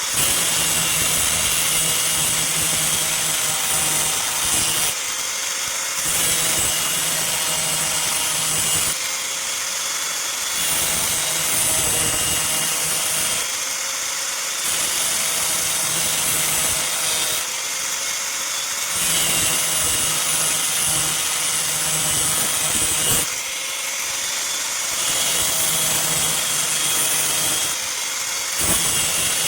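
A motor-driven abrasive tool working steel, as a knife blade made from old scissors is ground and finished. It goes in alternating passes every few seconds over a steady motor hum.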